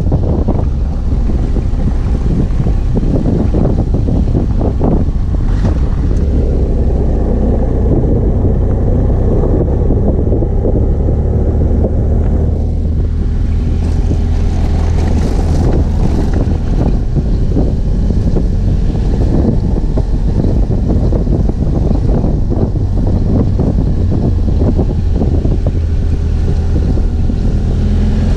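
BMW F 800 GS Adventure's parallel-twin engine running steadily while riding on a dirt road, with heavy wind buffeting on the microphone and scattered knocks from the tyres and suspension over the rough surface.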